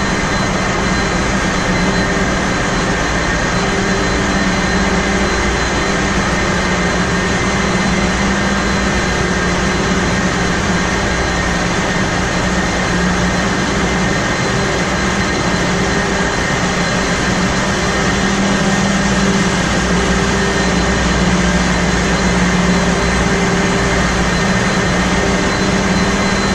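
Loud, steady engine-room machinery noise beside a ship's Wärtsilä RT-flex82T seven-cylinder low-speed two-stroke diesel main engine running at sea, a dense unbroken din with several steady hums in it.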